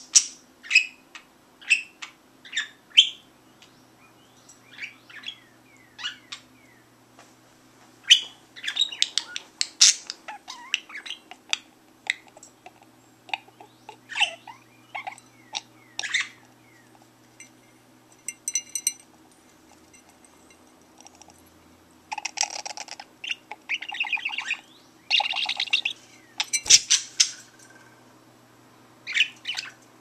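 Budgerigar chirping and warbling, with short separate chirps and pitch sweeps, then a denser run of buzzy chatter later on. Some of the song is sung into a drinking glass of water, which makes the voice echo.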